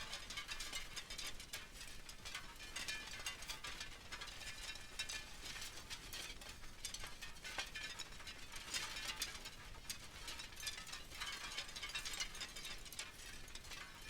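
Wind chimes blown by the wind, clinking against each other in a dense, continuous jangle of small strikes. The jangle swells several times as the gusts pick up.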